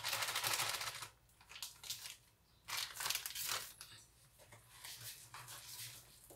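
Wheat flour shaken from a crinkly flour packet into a mixing bowl: a steady rustling hiss for about the first second, then several shorter crinkles and rustles of the packet and the mixture.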